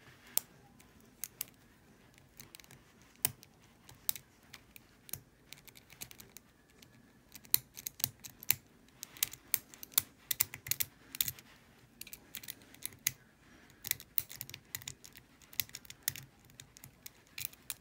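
Lock pick and tension tool clicking and scraping inside the keyway of a small Travel Sentry TSA luggage padlock with square tumblers. The sharp, irregular metallic clicks come thickest through the middle stretch.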